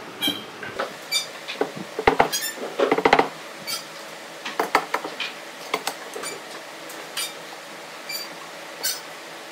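Irregular knocks and light metallic clinks of hand tools and workpieces being handled, busiest about two to three seconds in, over a faint steady hum.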